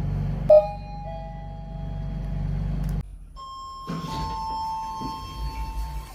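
Elevator arrival chimes. A chime strikes sharply about half a second in and its tones ring on; then a two-note chime sounds, a higher note followed by a slightly lower one, over a low steady hum.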